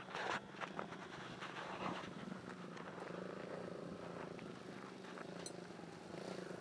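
Youth-size dirt bike engine running at a distance, a steady drone that gets louder near the end as the bike comes closer. A few clicks and rustles in the first two seconds.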